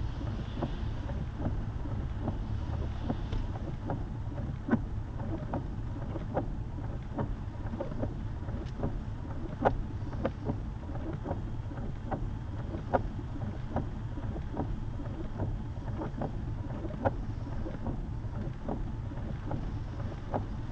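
A lifted Jeep driving, heard from inside the cabin: a steady low road and engine rumble with many short, sharp ticks scattered irregularly through it.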